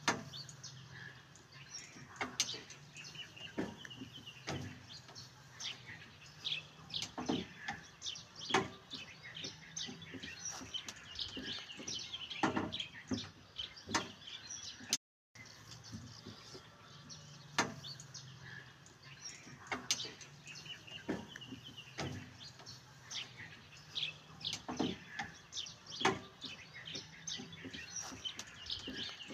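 Small birds chirping, with scattered sharp clicks and knocks throughout. The sound cuts out completely for a moment about halfway through.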